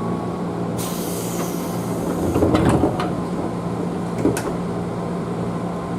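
Train passenger doors working: a hiss of air starts about a second in, then a heavy knock and rattle of the door panels comes around two and a half seconds in, and a sharp click follows a little after four seconds. A steady hum from the train car runs underneath.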